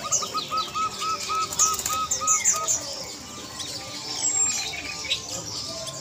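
Caged zebra doves, one giving a quick run of about nine short, evenly spaced cooing notes over the first two and a half seconds. Many small birds chirp high and steadily throughout.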